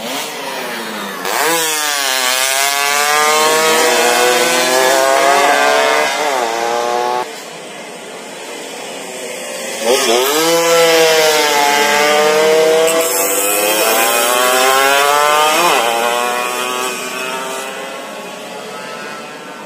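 Yamaha F1ZR two-stroke race motorcycles at full throttle, a high-pitched, buzzing engine note that dips at each gear change and climbs again. It comes in two loud runs, the first cutting off sharply about seven seconds in, the second starting suddenly about ten seconds in and fading near the end.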